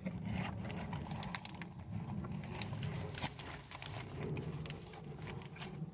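A person chewing a mouthful of crispy fried-chicken sandwich close to the microphone, with many irregular crunchy clicks from the breading over a low mouth rumble.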